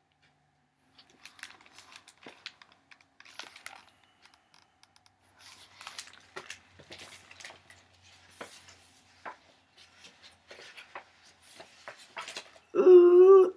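Glossy pages of a book being handled and flipped, making scattered papery rustles and crackles. Near the end, a loud, short drawn-out voice sound cuts in.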